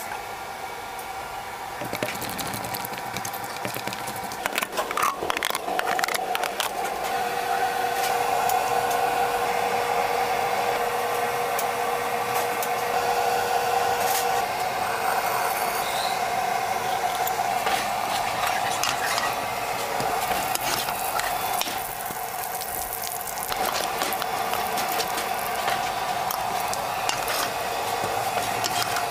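Kitchen food-preparation sounds: utensils scraping, rattling and squishing as ingredients are worked, over a steady machine hum that comes in about six seconds in.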